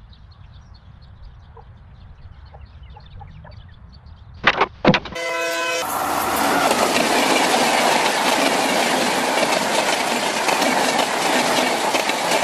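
Steam train sound effects. A quiet low rumble with faint regular chuffs leads into two sharp loud bursts about four and a half seconds in, then a whistle blast and a loud, steady rush of train noise.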